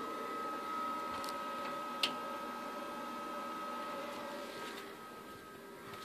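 Setworks stepper motor, a 5 A, 570 oz-in unit on a 40:1 gearbox, giving a steady high whine that fades out about five seconds in, with a single click about two seconds in.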